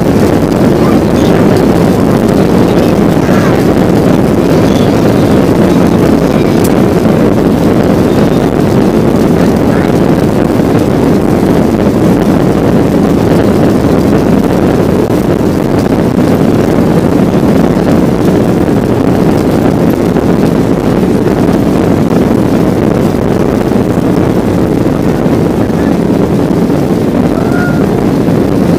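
Cabin noise of a Boeing 737-800 on its take-off run: its CFM56 jet engines and the rush of air, a loud, steady noise that holds without a break.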